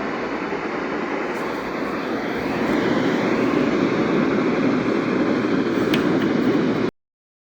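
Steady radio static hiss from a software-defined radio receiver on a NOAA Weather Radio frequency, with no voice or alert tone in it. It grows a little louder about three seconds in and cuts off abruptly near the end.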